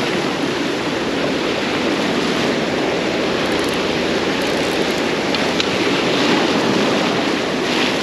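Ocean surf breaking and washing over jetty rocks: a steady rushing of foaming water.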